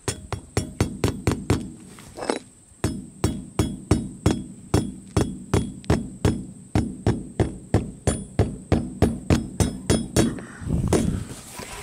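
Hammer driving nails, a long run of quick, even blows, about three to four a second, with a brief pause about two seconds in and the hammering stopping near the end.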